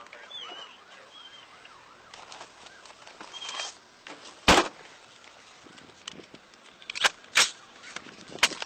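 Police siren yelping faintly in the first couple of seconds, then sharp bangs: one loud one about halfway through and three more near the end.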